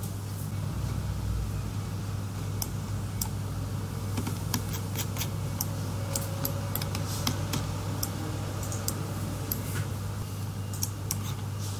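Irregular clicking of a computer keyboard and mouse being operated, over a steady low hum.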